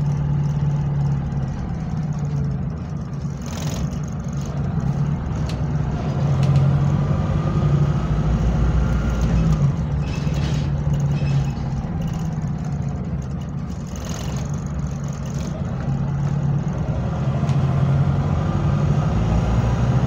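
Double-decker bus engine running loud through a burst exhaust, heard from inside the bus as a deep, steady drone that swells and eases with the engine. A few sharp rattles or knocks from the bus body sound over it.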